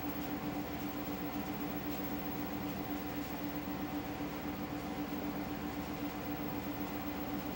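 A steady hum with hiss, holding one low pitch and a fainter higher one, unchanging throughout.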